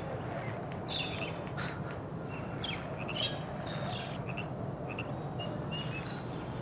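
Small birds chirping: short, scattered tweets and chirps over a steady low background noise.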